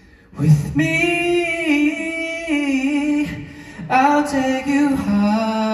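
A man singing unaccompanied into a microphone, holding long high notes in two phrases with a short breath about three and a half seconds in. The singer says he started the song way too high.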